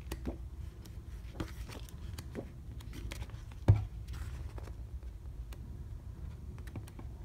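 Pages of a softcover paper booklet being opened and turned by hand: soft rustles and light taps, with one sharper knock about three and a half seconds in.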